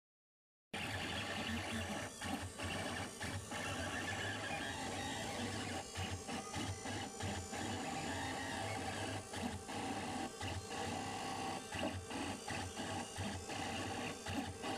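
Homemade delta 3D printer running, its stepper motors giving a steady whirr broken by many short pauses and changes in pitch as the carriages move; the sound cuts in abruptly under a second in.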